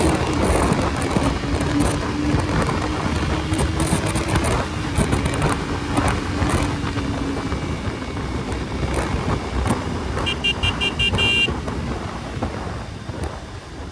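Motorcycle riding fast in traffic, with heavy wind rush over the engine. About ten seconds in comes a quick string of about six short horn beeps.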